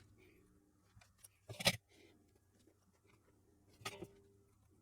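Soft clicks and taps of small tools and wire being handled while soldering wires onto tiny LED boards, with louder clicks about one and a half seconds in and again about four seconds in.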